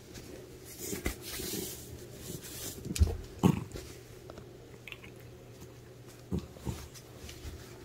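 A calico cat rolling on its back on a wooden floor, making a few short low sounds, with a soft rustle of fur against the floor early on.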